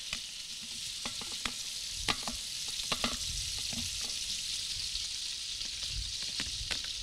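Cubes of seasoned pork fat frying for cracklings in a shallow layer of hot vegetable oil in a large pot: a steady sizzling hiss with scattered sharp clicks.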